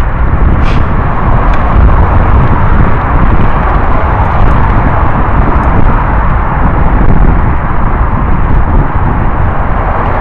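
Riding noise from a mountain bike on a dirt singletrack: a loud, steady rumble of wind on the microphone mixed with tyre and frame noise, with a few light clicks near the start.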